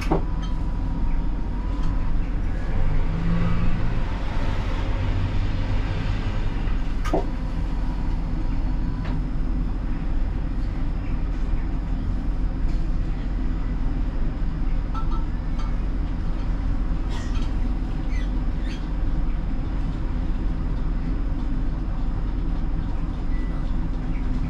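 Siemens Combino tram running, heard from the driver's cab: a steady low rumble of motors and wheels on the rails. A sharp click comes about seven seconds in, with a few fainter clicks later.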